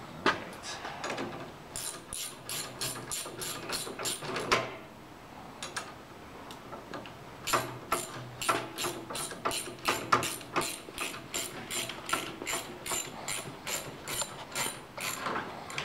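Ratchet wrench clicking in quick, even strokes, about four or five clicks a second, as a nut on the handlebar clamp is tightened. There are two runs of clicking, with a pause of about three seconds between them.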